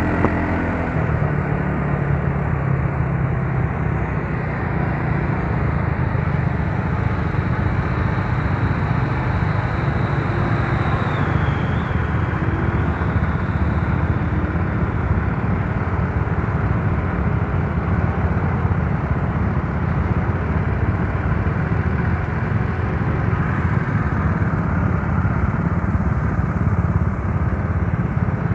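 Yamaha Mio Soul scooter's small single-cylinder engine running on the move, mostly buried under steady wind rush on the microphone.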